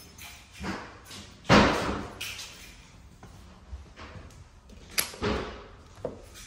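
A door being shut with a loud slam about one and a half seconds in, followed later by a few lighter knocks and a sharp click.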